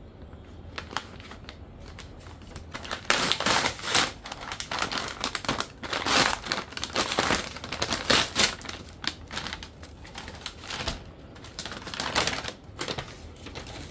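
Brown kraft-paper courier envelope being handled and pulled open by hand: irregular paper rustling and crinkling, heaviest from about three seconds in.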